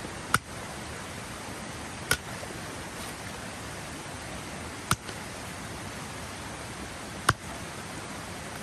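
A steady rushing noise, like running water, with four sharp clicks at irregular intervals.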